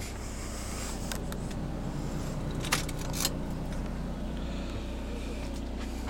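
Steady low hum of the motorhome's running 4.0 kW Onan generator, with two sharp clicks about half a second apart roughly three seconds in, from the ignition key being turned to switch the engine off.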